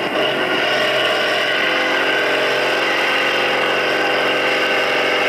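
Farm tractor's diesel engine running at a steady pitch as it pulls a weight-transfer sled in a tractor pull.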